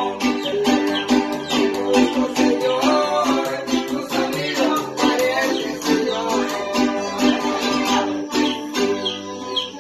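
Live string band playing: acoustic guitars strumming a steady rhythm under violins playing the melody.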